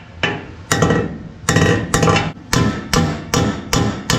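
Hammer blows on a bent metal mounting tab of a race car chassis, struck against a second hammer held behind it as a backing, to straighten the tab. The blows come at about two a second, each with a short metallic ring.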